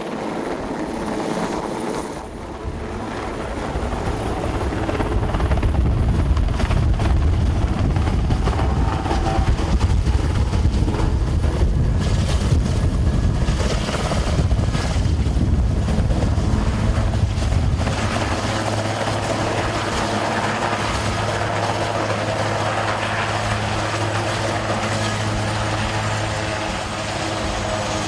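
Swiss Air Force Super Puma helicopter coming in to land, its main rotor beating loudly as it hovers low. A little over halfway through it settles on the ground, and the sound turns to a steadier hum with a held low tone as the rotors keep turning.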